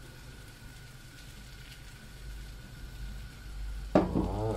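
Potato omelette frying quietly in a pan. Near the end a sharp clink of the knife against the pan, followed briefly by a short pitched squeak.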